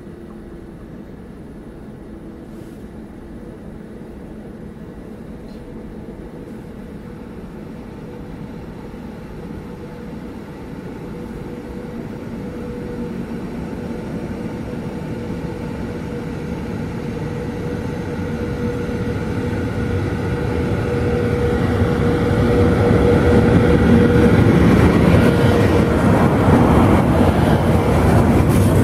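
Electric train approaching and running past a station platform: a low rumble and a steady whine grow louder over about twenty seconds, and the rumble peaks as the locomotive draws alongside near the end.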